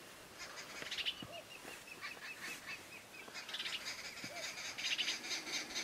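Flock of helmeted guineafowl calling: faint, harsh rattling chatter with a run of quick repeated notes, the chatter getting busier in the second half.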